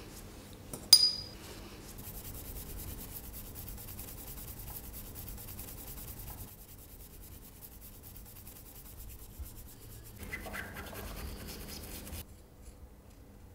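A sharp clink with a brief ring about a second in, then a stiff paintbrush scrubbing back and forth over a drawing on paper, stopping abruptly near the end.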